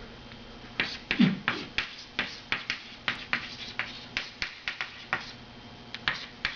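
A run of sharp clicks or taps, about three a second, starting about a second in, with a brief low sound among the first few.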